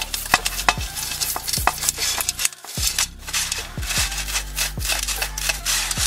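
An old toothbrush scrubbing a petrol-soaked moped drive chain, a quick wet scratchy brushing that goes on and off, over a steady thumping beat of background music.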